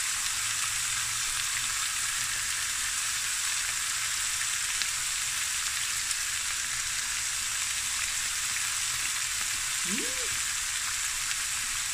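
Raw boneless chicken thighs sizzling steadily in hot oil in a stainless steel frying pan.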